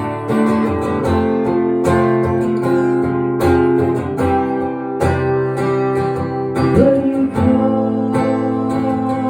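Live guitar music: chords strummed and left ringing in the instrumental close of a song, with no vocals.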